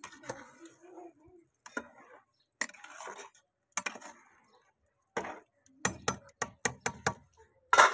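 Scattered light clinks and knocks of steel kitchenware, with a run of quick taps about six to seven seconds in and a louder knock near the end.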